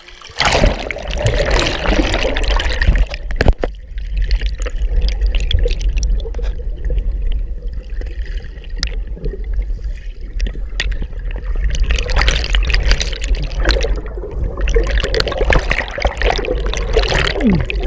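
Creek water heard through a submerged camera: a splash about half a second in, then the muffled low rush of the current underwater, with splashing and bubbling again over the last several seconds.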